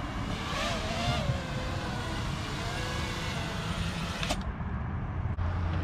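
Outdoor background noise with a steady hum of road traffic, a faint wavering tone near the start and a sharp click about four seconds in.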